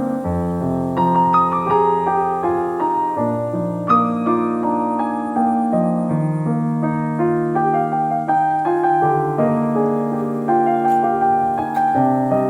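Background music: soft piano playing slow, sustained chords.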